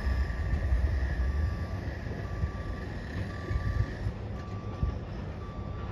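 Vehicle backup alarm beeping steadily, about one beep a second, over a low rumble, with a higher steady tone that fades out about four seconds in.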